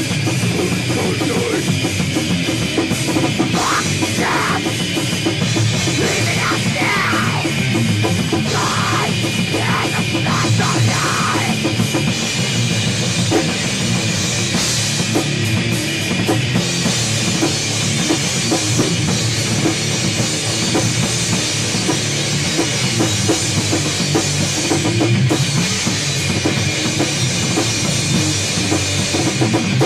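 Gore/death metal band playing live: distorted electric guitar, electric bass and a drum kit, loud and unbroken.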